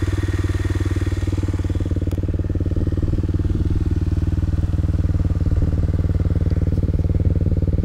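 Off-road motorcycle engine idling steadily, an even rapid putter of firing strokes that holds one pitch with no revving.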